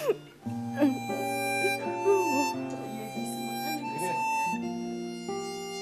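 Slow background music of held, sustained chords that change every second or so, with a few brief sobs over it.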